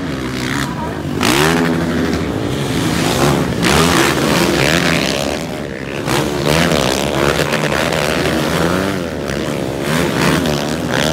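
Motocross bikes racing past one after another, their engines revving up and down in pitch as the riders work the throttle through the track section.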